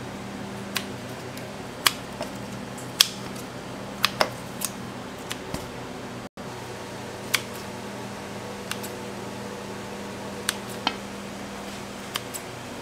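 Kitchen scissors snipping chunks off a block of cheese, with the pieces dropping into a stainless steel bowl: irregular sharp clicks and taps, a few louder ones near the start. Under them runs a steady hum from kitchen equipment.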